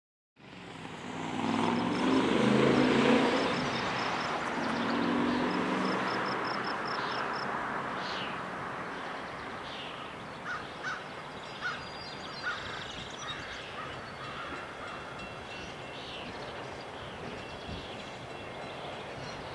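EMD GP7 diesel locomotive approaching with its train, its air horn sounding two blasts in the first few seconds, then a steady engine and rail rumble. Birds chirp over it in the middle of the stretch.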